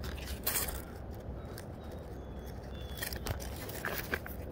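Light scraping and clicking of fingers among wet riverbank stones and debris: a few short, sharp ticks over a low, steady rumble.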